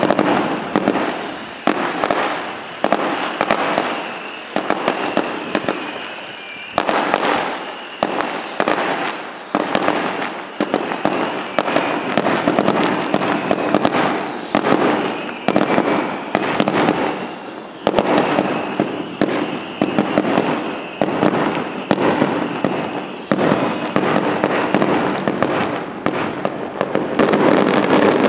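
Fireworks display: a rapid, unbroken run of loud bangs, about one or two a second, over continuous crackling.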